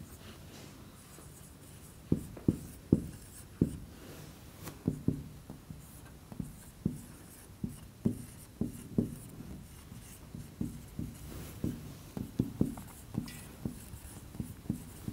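Marker pen writing on a whiteboard: a run of short, irregular strokes and taps that starts about two seconds in.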